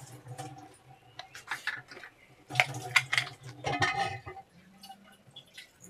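A metal spoon clinking and scraping against a metal kadai of simmering tamarind chutney, in short clusters, the busiest a bit after halfway, over a low steady hum.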